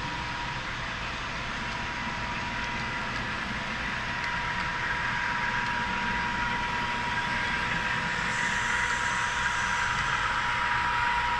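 HO scale model train running along the layout track: a steady rolling rumble that slowly grows louder, with a thin steady high tone throughout.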